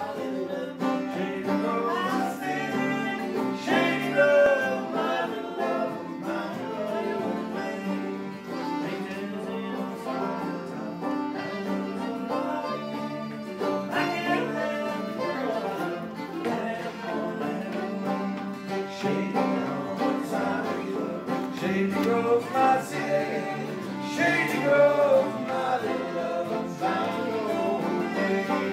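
Live folk band playing: strummed acoustic and electric guitars with a fiddle carrying the tune, continuous for the whole stretch.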